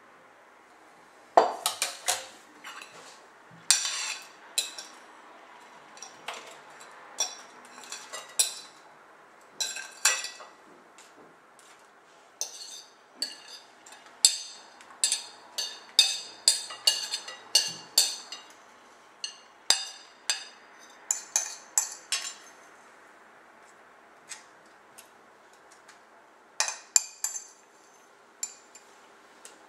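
A fork clinking and scraping against a plate in irregular clusters of sharp taps, pushing salad toppings off the plate.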